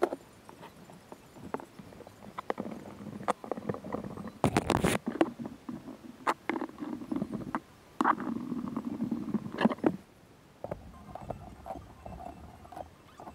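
Metal bar clamps and wooden boards being handled during a glue-up: many sharp clicks and knocks of the clamps against the wood and each other, with several stretches of scraping as the boards and clamps are shifted and tightened, quieter near the end.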